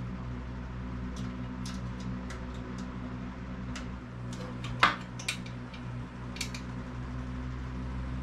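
Scattered light metallic clicks and clinks from handling a 2x42 benchtop belt grinder while its sanding belt is being changed, with one louder knock about five seconds in, over a steady low hum.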